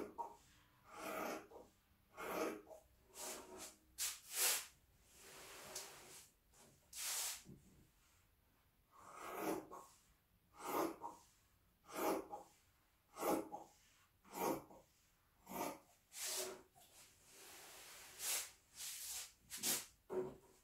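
Fabric shears cutting through a length of fabric along a pinned line: a steady run of snips, about one a second, with a short pause about eight seconds in.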